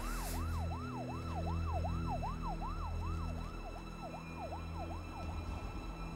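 Emergency vehicle siren in a fast yelp, its pitch sweeping up and down about three times a second, growing fainter and stopping about five seconds in.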